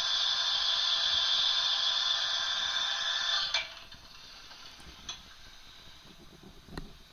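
Märklin 39243 HO steam locomotive's sound decoder playing its steam-injector effect: a steady hiss from the model's small speaker. It cuts off with a click about three and a half seconds in, and a few faint clicks follow.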